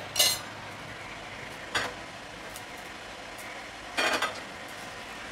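Sesame oil heating in a stainless steel saucepan on a gas burner: a low steady hiss with sharp crackles about a quarter second in, near two seconds, and a short cluster about four seconds in, as the oil comes up to heat.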